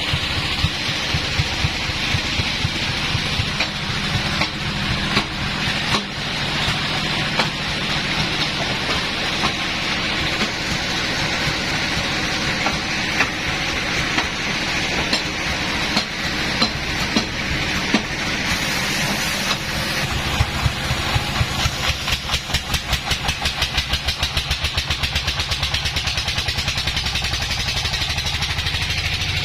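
Engine-driven sawmill running, with a steady hiss over the engine rumble as the saw works through wood. In the last third the engine settles into an even pulsing of about four beats a second.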